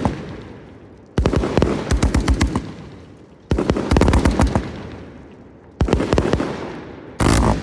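A 170-shot firework cake firing in volleys: four bursts of rapid crackling bangs about two seconds apart, each fading into an echoing rumble before the next, the last the densest.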